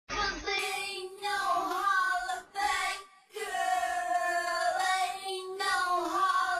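A high voice singing a melody in phrases with long held notes, with little or no accompaniment.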